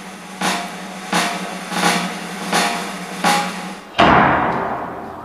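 Drum strikes evenly spaced about 0.7 seconds apart, then, about four seconds in, a loud bang for a toy stage cannon's shot that dies away over a second or so.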